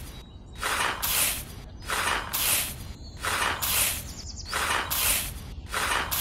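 A small metal toy shovel scooping unhusked rice grains and tipping them into a plastic toy trailer. About ten short rustling, pattering bursts of grain come one after another, with brief pauses between.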